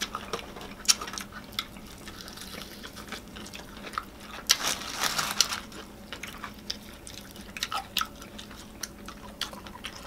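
Close-miked eating sounds: wet chewing and lip smacks on Popeyes fried chicken, many small sharp clicks, with louder crunching for about a second near the middle.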